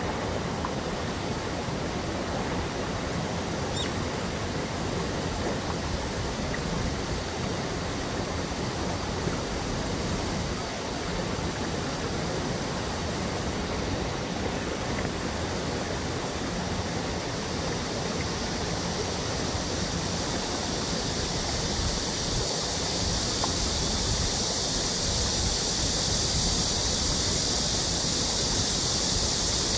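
Stream water rushing over rocks and down a small cascade: a steady hiss that grows brighter and a little louder in the last ten seconds.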